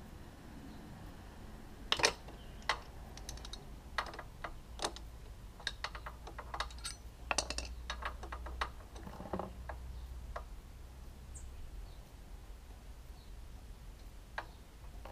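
Scattered sharp clicks and taps of a metal hand tool against the Minarelli AM6 engine's casing and plugs while the gearbox oil is being drained, most of them between about two and nine and a half seconds in, over a faint steady hum.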